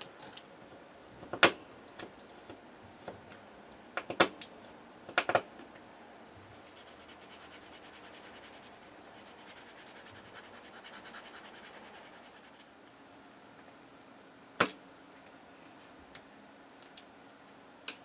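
Small styrene plastic pieces clicked down and tapped on a cutting mat, a few sharp clicks, then about six seconds of fast, even scratching as a plastic part is sanded on a sanding block, followed by another loud click and a few light ticks.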